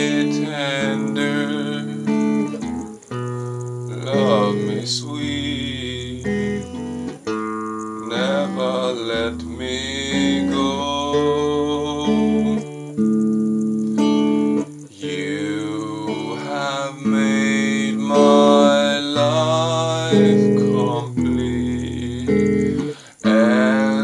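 Electric guitar strummed in sustained chords that change every second or two, with a man singing along.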